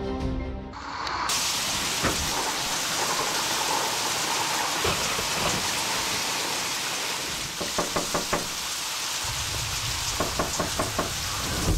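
Storm sound effect of steady heavy rain, taking over as music cuts off at the start. Two quick runs of about five knocks on a door come about eight seconds in and again near the end.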